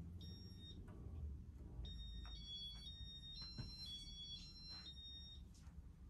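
A short electronic tune of high beeping tones from the Casablanca Stealth ceiling fan's electronic controls: a brief beep near the start, then a longer run of notes stepping up and down in pitch from about two seconds in to past five.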